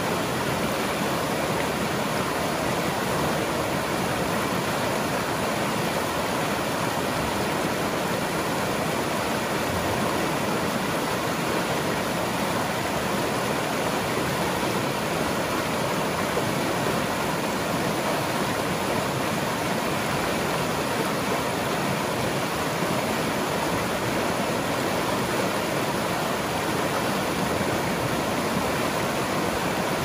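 Fast-flowing river rushing over shallow rapids: a steady, unbroken whitewater rush.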